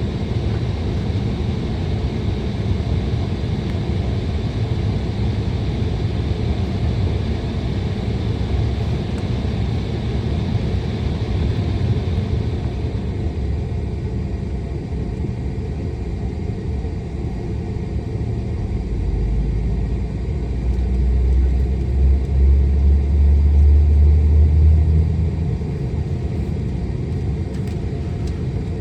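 Cabin ambience inside an Embraer E175 airliner: a steady low rumble with an airy hiss that fades about halfway through. Near the end a deeper rumble swells for several seconds, then eases off.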